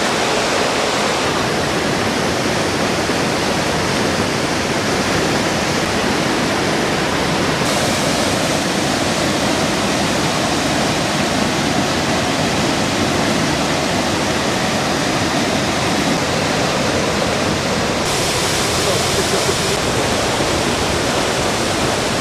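Loud, steady rushing roar of whitewater rapids and a waterfall, its hiss brightening and dulling slightly a few times.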